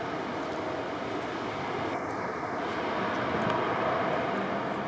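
Airbus A320 airliner's jet engines during its flare and landing, a steady rushing engine noise that swells slightly near the end.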